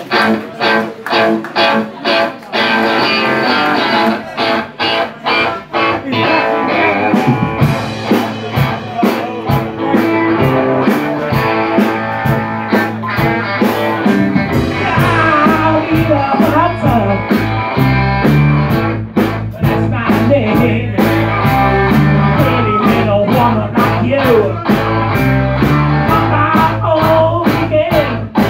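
Live blues-rock band jamming: electric guitars over a steady drum beat, with the bass end filling out about seven seconds in.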